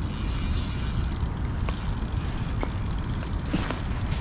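Folding bike ridden along a paved path: a steady low rumble of wind on the microphone and tyres on the pavement, with a few light clicks.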